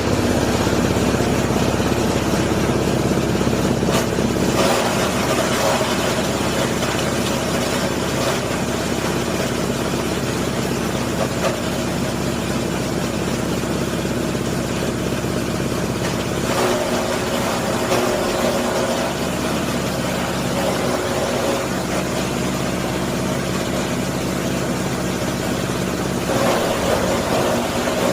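SM30 multipurpose grinding machine running steadily as it grinds veneer waste, its motor giving a constant hum. It grows louder and rougher for a second or two around 4 s, 17 s and 27 s in.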